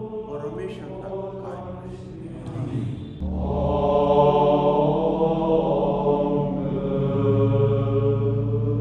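Chanted singing with music. A little over three seconds in, it changes to long held notes over a low drone.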